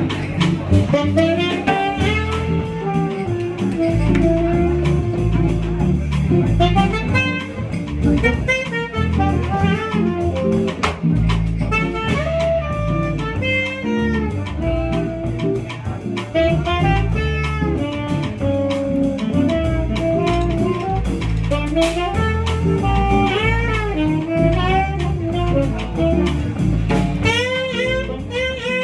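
A small jazz band playing: a saxophone-like lead line with wavering pitch over an archtop guitar's chords, a walking bass line and drums.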